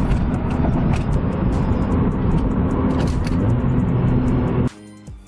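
Acura RSX's four-cylinder engine and road noise heard from inside the moving car, steady and loud. The sound cuts off suddenly near the end, and quiet music takes over.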